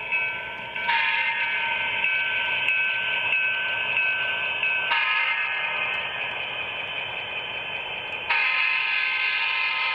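Sound decoder in an HO-scale model diesel locomotive playing through its small onboard speaker: a steady sound of several held tones with little bass. It steps louder about a second in, eases off around six seconds, and steps up again about eight seconds in.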